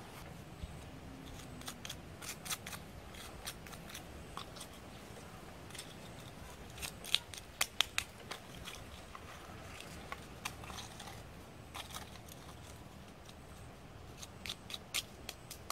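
Irregular sharp clicks and snaps, a few at a time, with a cluster of louder ones about seven to eight seconds in and another near the end, over a low steady hiss.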